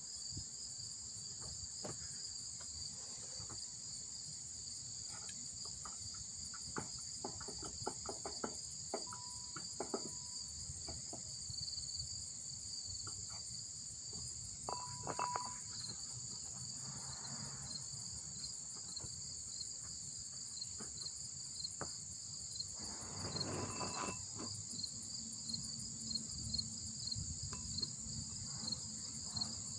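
Insects trilling in a steady high-pitched outdoor chorus, with a fine, even pulsing, over a low rumble and a few faint clicks.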